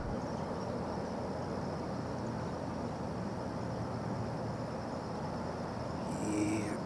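Steady outdoor background noise with a faint, constant high tone running through it. A short higher-pitched sound comes near the end.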